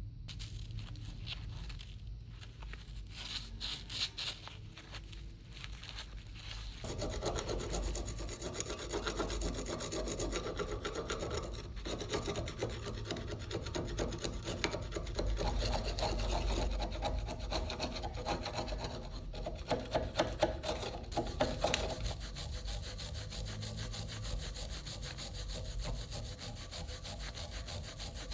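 Steady rhythmic scraping and rubbing strokes of a hand tool working the rusty folding knife. The strokes change character a few seconds in and again near the end.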